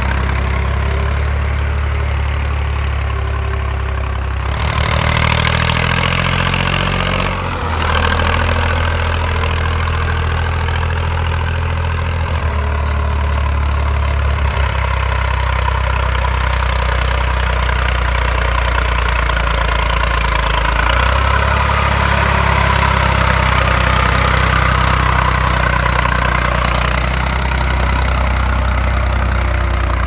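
IMT 542 tractor's three-cylinder diesel engine running steadily under load while pulling a plough through the soil, its note shifting a few times.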